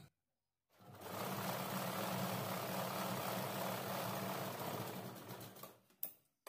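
Sewing machine running steadily as it stitches a seam through cloth, starting about a second in and slowing to a stop near the end, followed by a single click.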